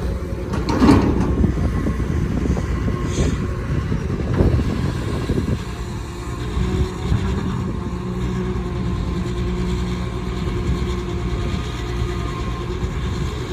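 Caterpillar 320D excavator's diesel engine running steadily, with a couple of louder clanks or scrapes about one second and four and a half seconds in.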